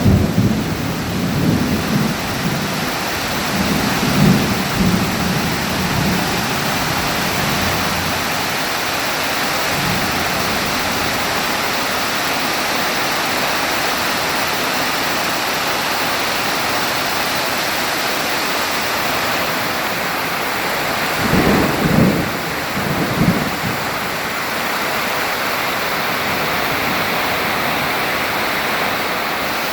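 Heavy rain falling steadily through a thunderstorm, with rolling thunder in the first few seconds and two more rumbles about two-thirds of the way through.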